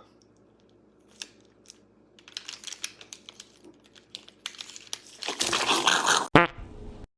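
A plastic bottle crinkling and clicking as it is handled, the crackles growing denser. About five and a half seconds in comes a loud, dense rush of noise that ends in a sharp snap.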